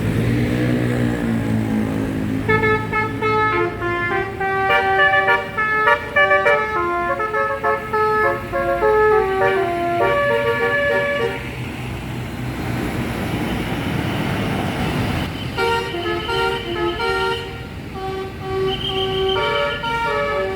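Basuri telolet musical horn on a passing bus playing a quick multi-note tune in two stretches, with a short pause between them. Bus engine and road noise run underneath and fill the pause.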